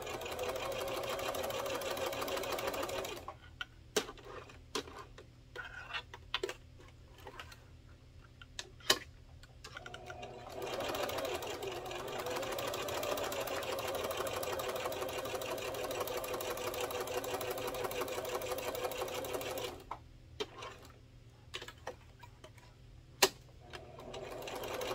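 Domestic sewing machine with a walking foot stitching through layered fabric in two steady runs, one of about three seconds and one of about nine, and briefly again near the end. Between the runs come scattered single clicks and knocks as the machine is cranked a stitch at a time by its handwheel to keep the stitching even at a turn.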